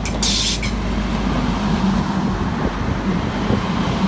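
Class 185 diesel multiple unit running close by, a steady low diesel engine hum and rumble, with a short hiss of air just after the start.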